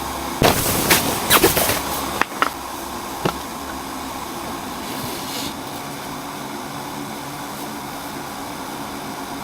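A quick run of sharp knocks or impacts, loudest in the first two seconds, with a last one about three seconds in, over a steady rushing noise that carries on.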